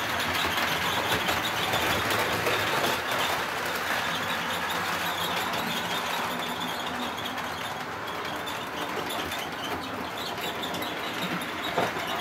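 Model diesel locomotive hauling a train of tank wagons over curved track and points: a steady running rumble with wheels clicking over rail joints, and a sharp click near the end.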